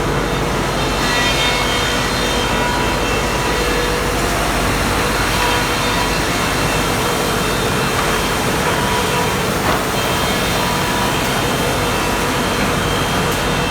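Industrial planer sander (SPR RP1300A) running steadily: a loud, even machine noise with a constant whine over it.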